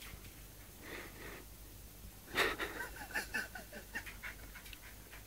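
West Highland white terrier puppy breathing hard and wheezing softly, with a quick run of short panting breaths about halfway through.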